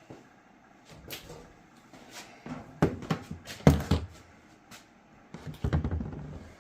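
Clunks and rattles of sheet-metal dryer parts being handled during reassembly, in three bursts, with the loudest knocks near the middle.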